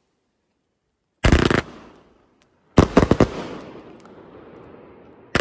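Multi-shot consumer firework cake firing its aerial shells: a tight volley of loud bangs about a second in, a second cluster of several sharp reports about a second and a half later that fades out slowly, and another volley right at the end.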